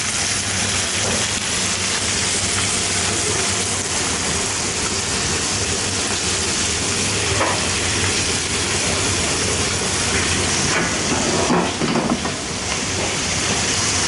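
Frog legs sizzling in foaming butter in a black steel frying pan: a steady frying hiss. The legs are still browning on their first side.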